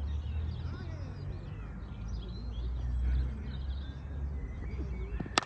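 Wind rumbling on the microphone while small birds chirp and twitter, with a single sharp crack near the end.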